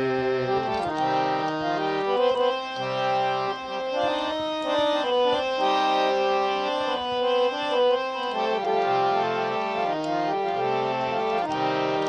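Instrumental interlude of a Bengali song: a melody in held notes over sustained chords on a reed-like keyboard instrument, with no singing.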